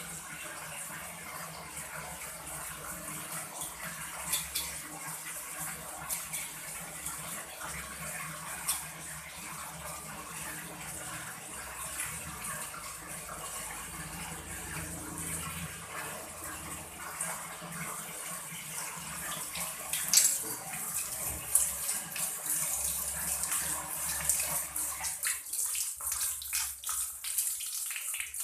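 Running water splashing in a basin as fish are washed during cleaning, with scattered sharp knocks and splashes; the lower, fuller part of the water sound drops away near the end.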